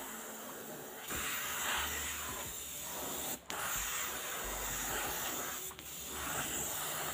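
Gravity-feed airbrush spraying paint onto a plastic minnow lure: a steady hiss of air and paint, broken off briefly twice.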